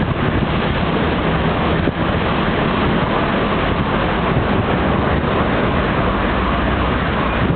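Steady wind rumble on the microphone mixed with city street traffic noise.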